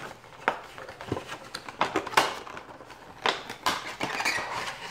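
A cardboard Funko Pop box being opened by hand: irregular sharp clicks and taps of the flaps and packaging, with some rustling.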